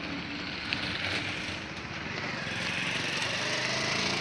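A motor vehicle's engine running, growing louder over the last couple of seconds, with a single light click about a second in.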